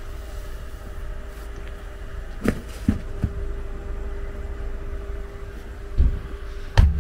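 Steady mechanical hum over a low rumble, typical of the mobile tyre van's air compressor running to supply the air tools, with a few short knocks and thumps from handling the wheel and tools, the loudest near the end.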